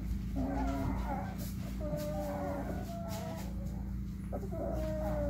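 Young puppies whimpering and whining: a few drawn-out, high-pitched cries, with one starting about half a second in, another around two seconds and a third near the end, over a steady low hum.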